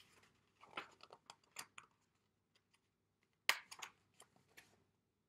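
Paper pages of a picture book being handled and turned: a run of short, crisp crackles and rustles, with the sharpest one about three and a half seconds in.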